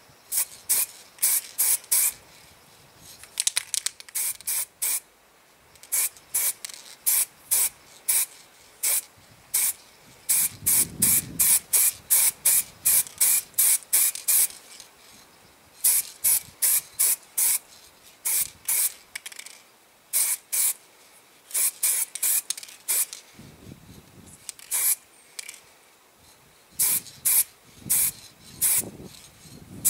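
Spray paint hissing out in many short bursts, two or three a second, in quick runs with brief pauses between, as a toy part is sprayed with light coats.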